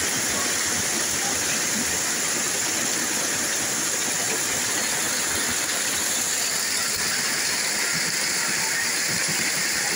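Steady, even hiss of water, unchanging in level throughout.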